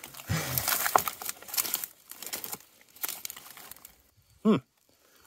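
Dry grass and brush rustling and crackling in uneven patches as a freshly sawn log is picked up and handled with gloved hands. A brief grunt near the start and a short hum about four and a half seconds in.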